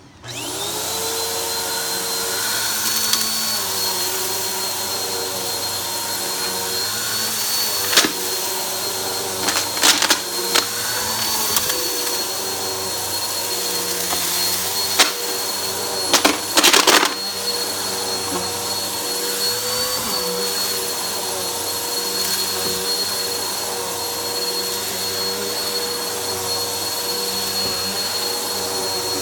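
Vacuum cleaner switched on, its motor spinning up to a steady whine and running on while sucking up a pile of dirt from carpet. A few sharp rattles of grit being pulled up come through, the loudest around 17 seconds in.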